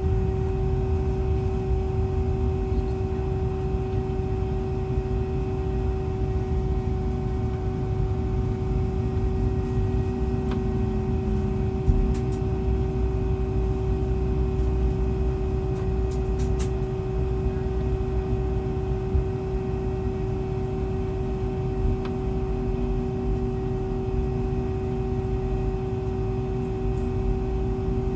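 Steady cabin hum of a Boeing 757-200 airliner: a constant mid-pitched tone over a low rumble, holding level with no rise in pitch, with a few faint ticks.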